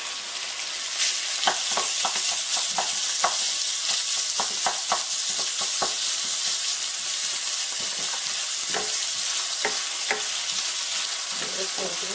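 Minced pork sizzling in hot oil with chopped green onions in a frying pan, stirred and broken up with a wooden spatula and wooden spoon that tap against the pan many times. The sizzle grows louder about a second in.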